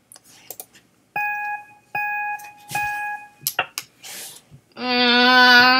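Mac Photo Booth's recording countdown: three short beeps about 0.8 s apart, then a click. Near the end a child's voice holds one steady note.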